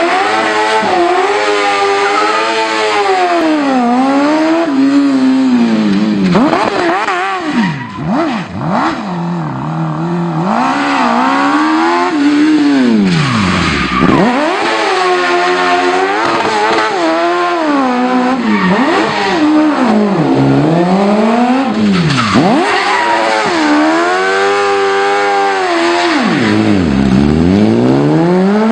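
Modified Smart ForTwo's engine revving hard and falling back over and over, its pitch rising and dropping every few seconds, with tyres squealing as the car spins donuts under heavy throttle.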